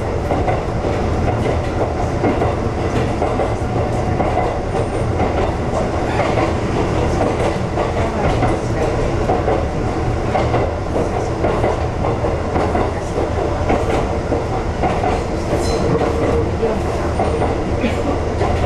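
Ex-Tokyu 7000 series electric train running steadily along the track, heard from inside the driver's cab: a continuous low rumble of wheels and running gear, with scattered clicks as the wheels cross rail joints.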